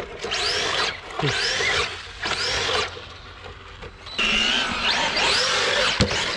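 Brushless electric motor of a Traxxas RC monster truck whining in repeated bursts, each rising then falling in pitch as the throttle is punched and let off. A sharp knock comes about six seconds in, as the truck tumbles.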